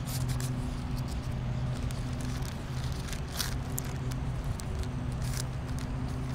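Pages of a Bible being leafed through, a few short papery rustles, over a steady low engine hum in the background.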